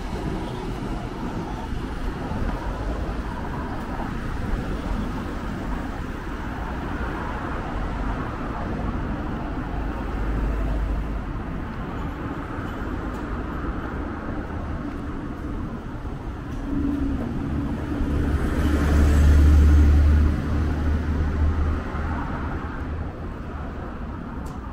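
City street traffic: a steady wash of passing vehicles, with one vehicle passing close and loudest about nineteen seconds in.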